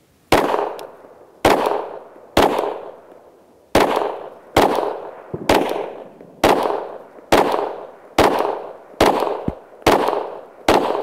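A Glock 34 9mm pistol fired twelve times at a steady pace of about one shot a second, each shot trailing off in a long echo.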